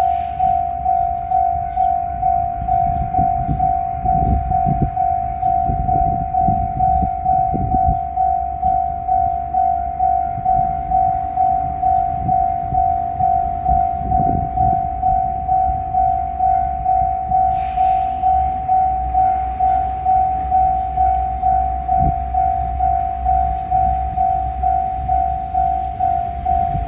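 Japanese railway level crossing alarm ringing its kan-kan, an even single-pitched tone at about two strikes a second.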